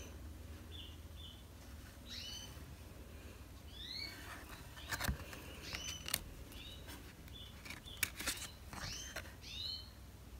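A bird chirping over and over, a dozen or so short calls that sweep up in pitch and level off. Several sharp clicks and taps from stiff cards being handled and set down, the loudest about halfway through and again near the end.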